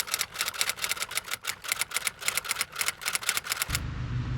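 Rapid, evenly spaced typewriter clicks, about six a second, that stop suddenly near the end, where a steady low hum begins.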